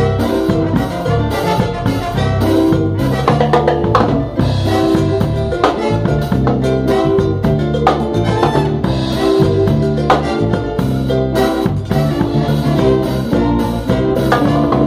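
Live salsa band playing an instrumental passage: drum kit and percussion keep a steady beat under brass and other sustained instruments.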